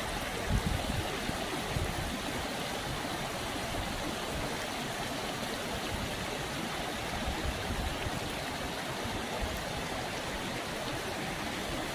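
Creek water rushing and splashing over small cascading waterfalls, a steady rush. A couple of low thumps about half a second in.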